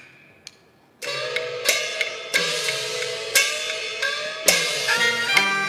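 Peking opera percussion: a sharp click, then from about a second in, small cymbals and a small hand-held gong struck with a flat wooden beater play a rhythmic pattern. The gong rings with a sliding pitch after each stroke, and the strokes come quicker near the end.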